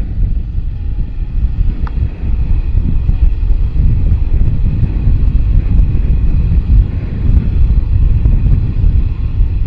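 Wind rumbling on the microphone as a Moto Guzzi V85TT motorcycle is ridden off-road, with its air-cooled V-twin engine running underneath. There is a brief click about two seconds in.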